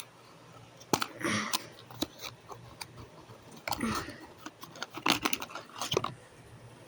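A small plastic surprise-toy container being opened and its contents handled: a few sharp plastic clicks and short crinkling rustles, loudest about four and five seconds in.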